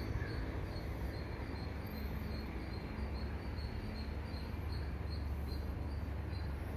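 A faint high chirp repeating evenly, about two to three times a second, over a low steady rumble of outdoor background noise.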